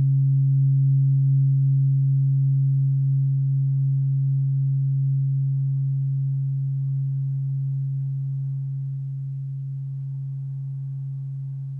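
OM tuning fork pitched at 136.1 Hz ringing with a steady low pure tone and a faint octave above it, slowly fading.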